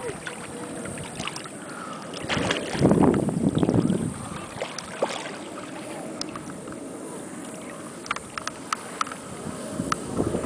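Shallow sea water splashing and lapping close to the microphone, with scattered small splashes and a louder sloshing stretch about three seconds in.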